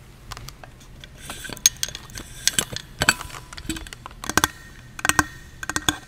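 Handling of a metal insulated water bottle close to the microphone: a series of sharp taps and clicks on its body and cap, some with a short metallic ring, in clusters from about a second in.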